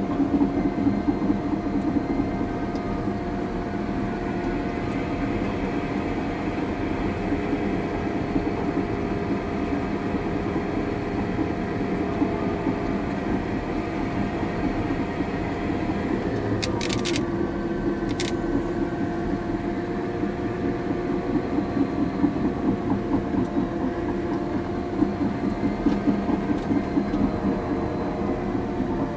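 Caterpillar D6 bulldozer's diesel engine running steadily with its tracks rattling, heard from inside the cab while the machine pushes trash. A few sharp clicks come about two-thirds of the way through.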